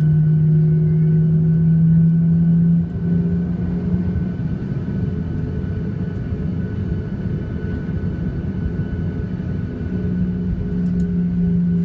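Cabin noise of a Boeing 737-800 taxiing, heard from a window seat over the wing. There is a steady low rumble from its CFM56 engines and the wheels on the taxiway. A steady low hum sits over it, drops away about three seconds in, and comes back near the end.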